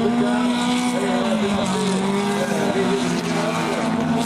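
Several autocross saloon cars' engines running hard together on a dirt track. One engine note steps down in pitch about a second in, and the other notes rise and fall.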